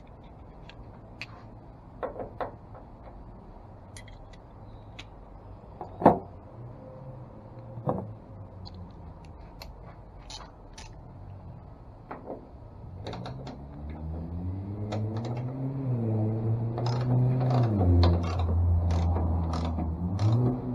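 A hand socket ratchet clicking and knocking against the tailgate's hex bolt as it is loosened: sparse clicks at first, denser near the end. About two-thirds of the way in, an engine-like hum comes in, rises in pitch and grows louder.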